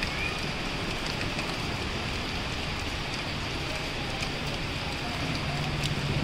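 Heavy rain falling steadily, a constant hiss with scattered faint drop ticks. A low engine hum comes in near the end.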